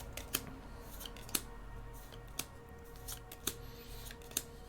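Scattered sharp crinkles and clicks of a foil trading-card booster pack being opened and its cards handled, about ten separate snaps over a faint steady hum.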